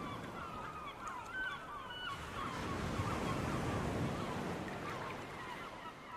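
A flock of birds calling: many short honking calls overlapping one another, over a steady low rush of surf.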